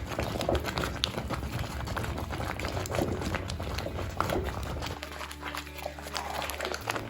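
Maize porridge (pap) bubbling in the pot, with many short pops and plops.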